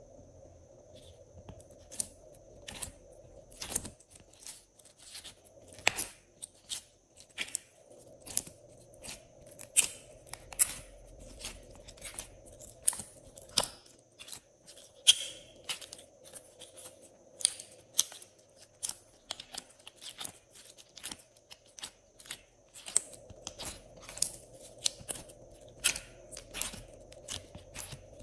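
Sticky glossy slime squished and pressed by hand, giving irregular sharp wet clicks and pops, sometimes several a second, over a faint steady hum.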